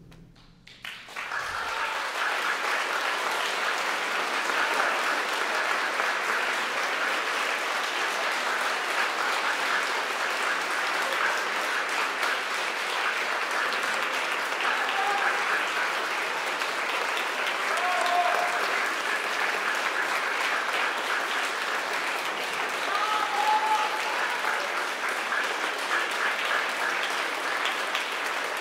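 Concert audience and performers applauding after the final chord dies away. The clapping breaks out about a second in and stays steady and dense throughout.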